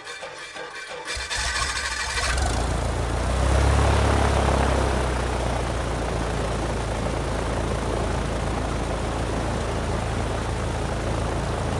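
Radio-controlled plane's electric motor and propeller spinning up about a second in, then running steadily at throttle with a low hum under a dense rushing noise, loudest a few seconds in. It is heard from a small camera strapped to the plane.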